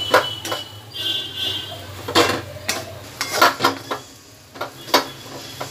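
Metal spatula scraping and knocking against a metal kadai (wok) as a thick chana dal mixture is stirred and turned in ghee, about ten irregular strikes and scrapes, a few leaving a brief metallic ring. Under it runs a low steady hum.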